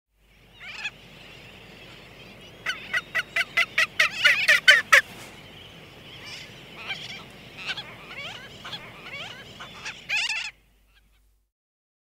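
Great frigatebird calling as it flies in and lands at its nest: a loud run of about ten sharp, quickening strokes, then scattered calls. Behind it, a sooty tern colony calls steadily, and everything stops abruptly near the end.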